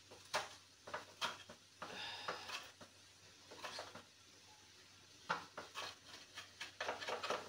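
Kitchen knife chopping fresh parsley on a wooden cutting board: irregular knocks of the blade on the board, some single, some in quick clusters, with short pauses between. The knife is blunt and not cutting well.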